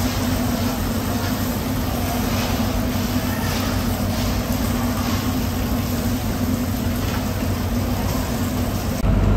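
A steady low machine hum and rumble, with the hiss of water from a hose spraying across a wet concrete floor. Near the end the rumble gets louder.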